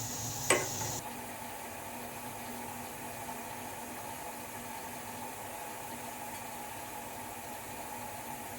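A single short knock about half a second in, then a steady hiss with a faint hum from a pot of rasam heating on the stove, not yet at the boil.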